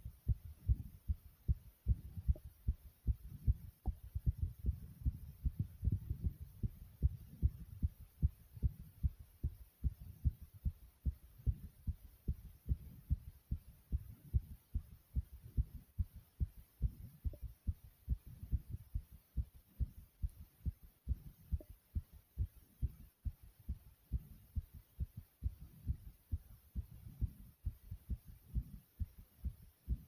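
A person's own heart beating fast and strong, a steady run of quick low thumps, raised by exertion just after jumping in place.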